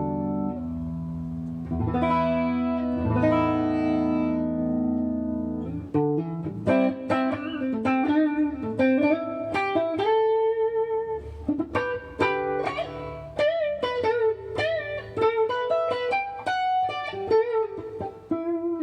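Kiesel Vader electric guitar played with a clean tone on its Kiesel Polarity bridge pickup, coil-split, in active mode. A few sustained chords ring out, then from about six seconds in it moves to a run of single notes with some bends.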